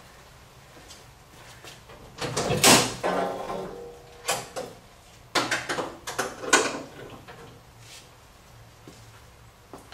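Hood of a 1965 Ford Mustang, a Shelby fiberglass hood, being unlatched and raised: a cluster of knocks with a short creak about two seconds in, then a run of sharp clunks and clatters as the hood is lifted and propped open.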